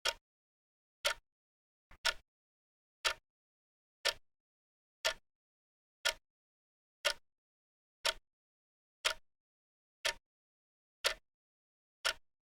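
Clock-style ticking, one sharp tick each second, thirteen ticks in all.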